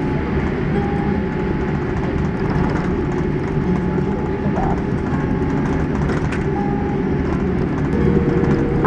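Steady rumble heard inside the cabin of a Boeing 787-8 rolling on the ground just after landing: engine and wheel noise with no change in level.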